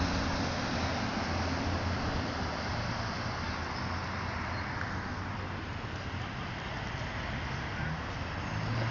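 Steady road traffic noise: passing vehicles' engines and tyres on the pavement. A low engine hum is strongest for the first few seconds, eases off, and swells again near the end.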